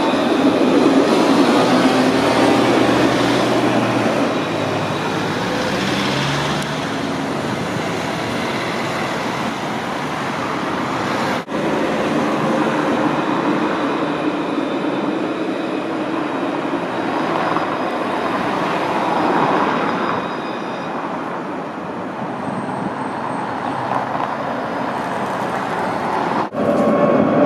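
Alstom Citadis low-floor tram passing close, its electric traction motors giving a whine that glides in pitch over the rumble of wheels on rail. After a cut about eleven seconds in, street traffic noise with a tram running through a stop.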